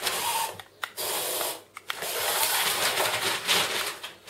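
Crumpled packing paper rustling and crackling in several bursts as kittens tumble and wrestle in it. A small toy car's motor whines briefly near the start.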